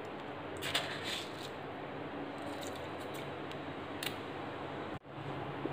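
Faint scrapes and a light click of a steel spoon against a steel pressure cooker pan of mutton and water as salt is stirred in, over a steady low room hum.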